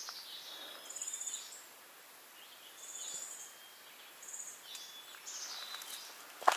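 A songbird singing high, thin phrases, a falling whistle followed by short trills repeated several times, over a soft background hiss. A footstep lands right at the end.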